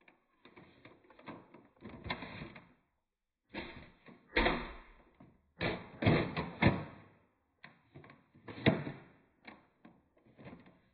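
Plastic clicks, rattles and sharp clacks of a Nerf Modulus foam-dart blaster being reloaded: the magazine is pulled and a fresh one seated, and the action is worked. The clacks come in several bursts, the loudest about four, six and nine seconds in.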